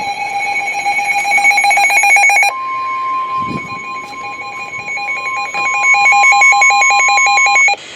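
Weather radio alert tones: rapid electronic alarm beeping, joined about two and a half seconds in by the steady single-pitch NOAA Weather Radio warning alarm tone, which cuts off just before the spoken warning starts.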